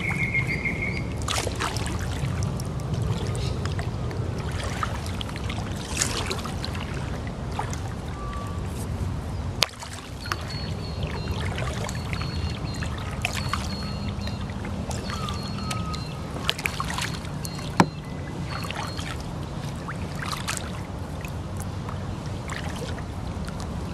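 Kayak paddle strokes, the blade splashing and dripping in creek water, with a few sharper knocks, over a steady low rumble.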